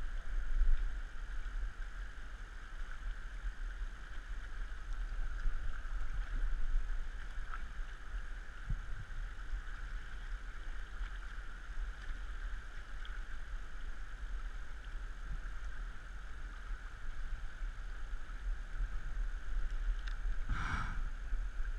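Steady rush of flowing river water over a low rumble. A short, louder sound comes near the end.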